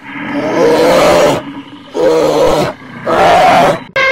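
Three loud, hoarse animal calls, each about a second long with short gaps between, then an abrupt cut near the end to a clearer, steadier pitched call.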